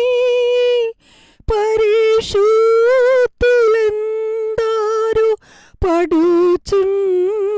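A woman singing a Telugu Christian hymn solo and unaccompanied, in long drawn-out held notes with vibrato, pausing briefly for breath twice; the melody steps down lower near the end.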